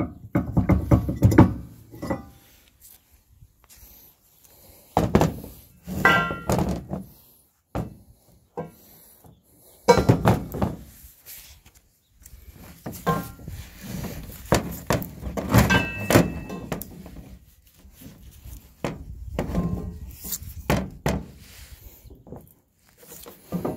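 Steel hitch parts being handled: a ball mount and the truck bed extender's square steel tube. Irregular metal clunks and knocks, a few of them ringing briefly.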